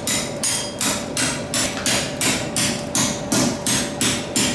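Soft-faced mallet striking a long steel bar over a hollow in the block, a steady run of about two and a half blows a second. The bar is being straightened cold: struck where nothing is underneath, it bends past straight and springs back.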